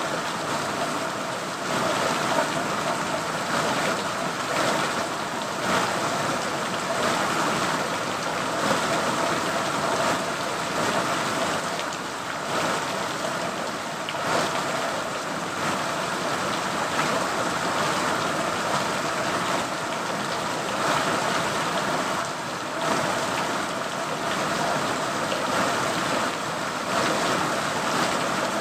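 Steady rainfall, a continuous even hiss of drops with small swells in intensity.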